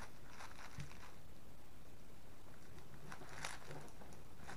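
Handling noise from a Vz-52 rifle's action as hands try to work the bolt carrier out of the receiver: a few light metal clicks and rustles of the bubble wrap under it, the loudest click a little after three seconds in.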